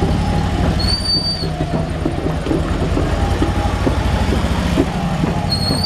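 Police motorcycle engine running at walking pace close by, a steady low rumble. Two short high-pitched beeps sound, one about a second in and one near the end.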